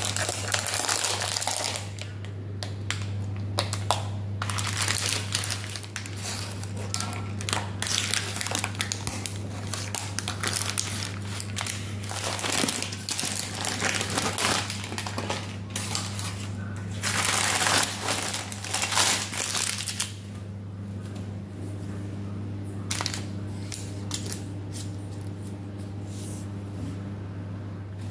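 Parchment baking paper crinkling and rustling in repeated bursts as it is handled and peeled off a baked sponge cake, dying down about two-thirds of the way through, over a steady low hum.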